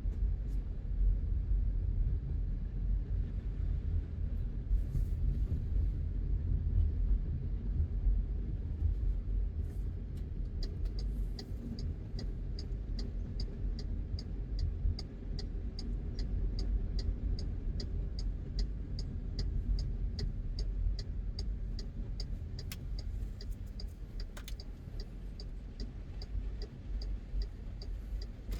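Car driving along a road, a steady low rumble of tyres and engine. From about a third of the way in, a regular high ticking joins it at about two to three ticks a second, stopping just before the end.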